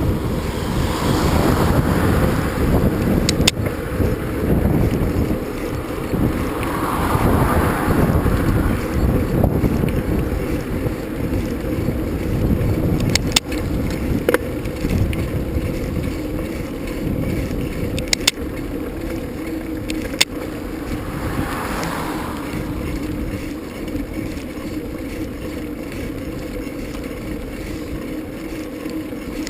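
Wind buffeting the microphone over the steady rumble of knobby tyres rolling along during a ride, swelling a few times, with a handful of sharp clicks.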